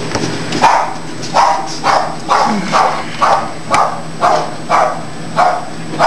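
A dog barking over and over, about two barks a second, starting about half a second in, with a steady low hum underneath.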